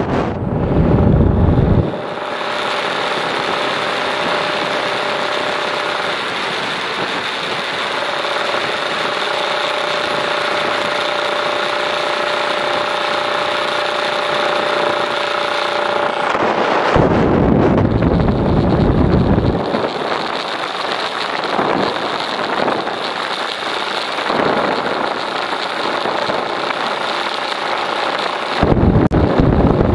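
Kawasaki Ninja 150RR's two-stroke single-cylinder engine running at a steady cruising pitch. Wind buffets the microphone at the start, again a little past halfway, and near the end.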